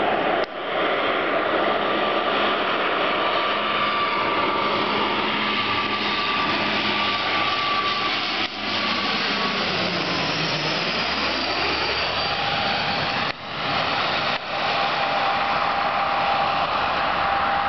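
Bombardier Dash 8 Q400 turboprop airliner flying low overhead on final approach, its two Pratt & Whitney PW150A turboprop engines and propellers droning loudly. A steady propeller whine holds its pitch, then drops lower as the aircraft passes, about ten to eleven seconds in.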